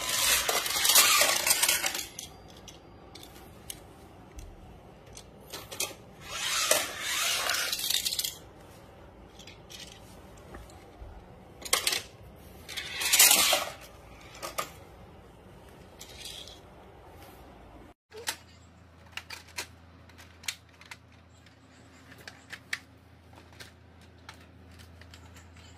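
Plastic toy track and small toy cars clattering in three loud rattling bursts, each about two seconds long. Then, from about two-thirds of the way in, scattered light clicks of plastic train-track pieces being handled and fitted together over a faint low hum.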